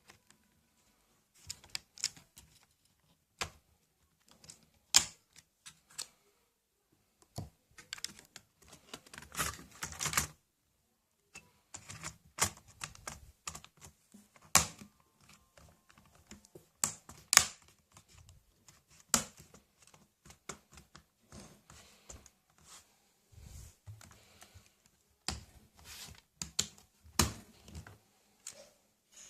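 Irregular clicks, taps and short clattering runs of a laptop's plastic case and parts being handled, typical of working on a ThinkPad R500's RAM, with a few louder single knocks.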